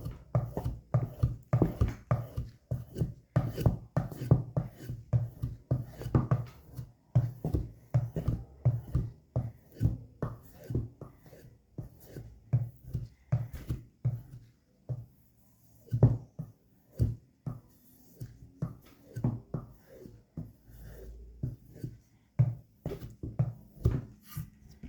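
Victorinox Hunter Pro Alox blade being honed in quick repeated strokes, about two to three scrapes a second, slowing to sparser single passes after the midpoint. The edge is being touched up to restore its bite after cutting.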